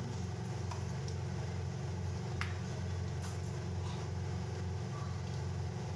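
Steady low machine hum of a commercial kitchen range, with a few light taps and scrapes of a metal ladle stirring thick simmering sauce in an iron pan.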